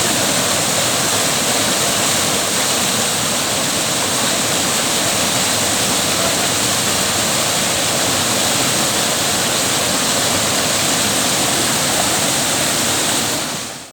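Waterfall rushing: a loud, steady roar of falling water that cuts off abruptly near the end.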